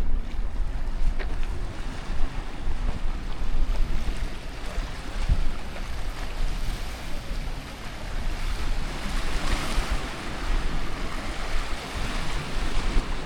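Sea waves washing ashore, with a surge of surf hiss swelling up and fading about two-thirds of the way in. Breeze rumbles on the microphone.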